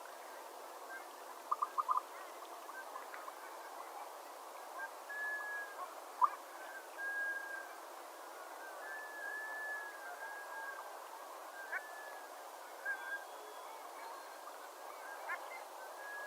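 Surf scoters calling: a loose series of short, soft whistled notes, with a quick triple click about a second and a half in and a single sharp click about six seconds in, over a steady hiss.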